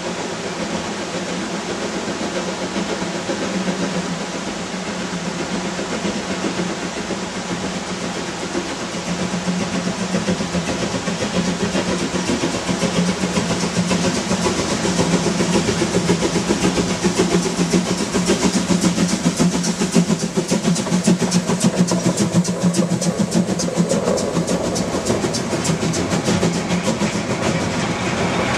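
Narrow-gauge steam locomotive hauling a freight train, its exhaust beats and running gear growing louder as it approaches. Near the end the goods wagons pass close by with a rolling clatter of wheels over rail joints.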